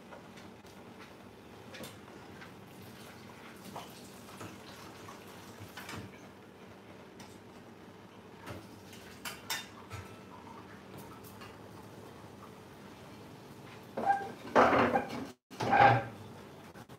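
Cooking sounds at a stovetop: metal pots, pans and utensils clinking and knocking now and then over a faint steady hum, with louder clattering a second or two before the end.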